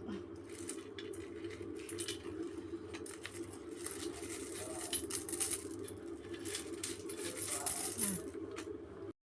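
Coins clinking and jingling against each other as a piggy bank of savings is emptied. The clinks come in quick clusters, thickest in the middle and later part, and the sound cuts off suddenly near the end.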